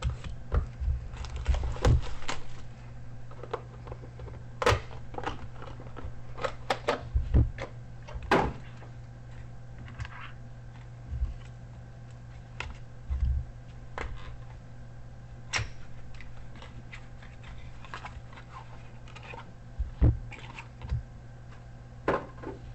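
Handling noises of a sealed trading-card box and its pack being opened: irregular clicks, taps and knocks with some soft rustling, over a steady low electrical hum.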